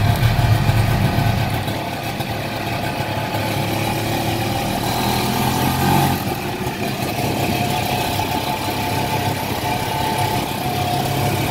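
Small motorcycle-type engine of a tuk-tuk running steadily, heard from inside its open passenger cab.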